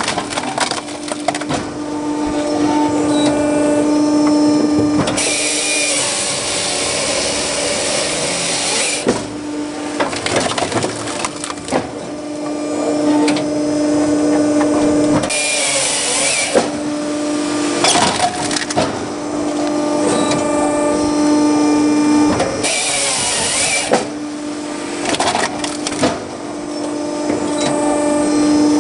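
TMS-45 firewood processor running: a steady hydraulic hum underlies everything while its hydraulic chainsaw, a Stihl 50 cm bar with full-chisel chain, cuts through a log three times, each cut a spell of harsh high-pitched sawing, the first about four seconds long and the others shorter. Sharp cracks and knocks come between the cuts as the rounds are split by the wedge and pieces fall.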